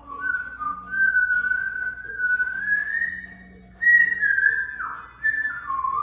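African grey parrot whistling a tune: a long held note that slowly climbs, a brief pause about three and a half seconds in, then notes that slide downward.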